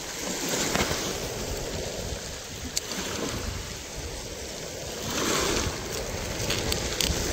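Sea waves washing on the shore, swelling twice, with wind on the microphone and a few brief sharp clicks.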